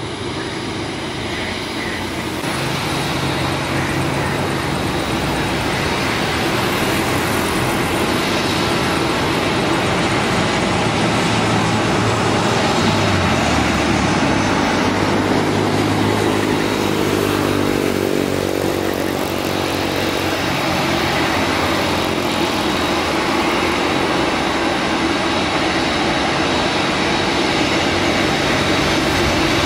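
Jet engines of a Boeing 747 freighter running loud and steady as the aircraft sits on the runway ready for takeoff, growing louder over the first few seconds, with low tones shifting in pitch midway.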